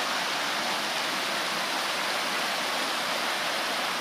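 Shallow rocky creek rushing over stones in white riffles, a steady rush of water.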